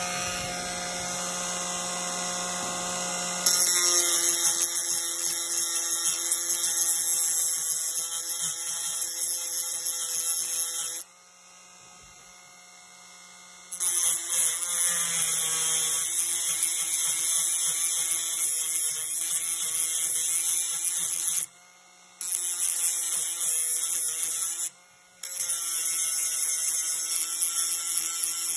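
Handheld rotary tool with a small abrasive disc grinding the brass rail of LGB track: the motor whines steadily, and a harsh grinding hiss comes in long stretches while the disc bears on the metal. The hiss stops three times, for a couple of seconds about eleven seconds in and briefly twice near the end, leaving only the quieter motor.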